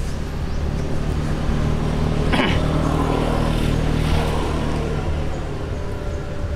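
A motor vehicle engine running steadily, growing louder toward the middle and easing off again, with a brief sharp falling sweep about two and a half seconds in.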